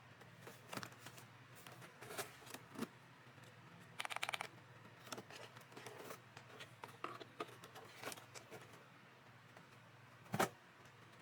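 Scattered keystrokes on a custom 65% Alice-layout mechanical keyboard with matcha switches: faint single key clicks, a quick run of presses about four seconds in, and one louder clack near the end.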